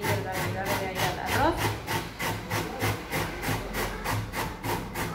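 Carrot being grated on a metal box grater: a quick, even rhythm of rasping strokes, a few a second.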